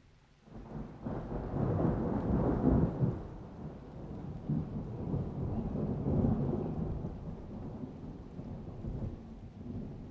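Rolling thunder: a deep rumble builds about half a second in, peaks a couple of seconds later, swells again mid-way and slowly dies away.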